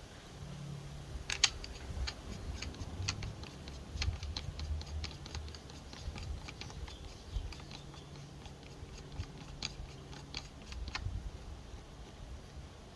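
Silverback TAC-41 P spring airsoft bolt-action rifle being worked: a long run of sharp, irregular metallic clicks and clacks from its mechanism, the loudest about a second and a half in, over a low hum.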